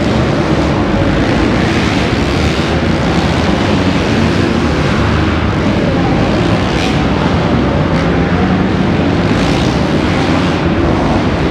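A pack of motocross dirt bikes racing together around a dirt track in a large covered arena, many engines revving at once into a loud, steady wall of engine noise.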